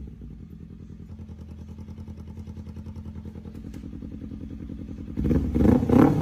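Kawasaki ZX-10R's inline-four engine idling steadily. About five seconds in, a much louder sound with a regular beat comes in.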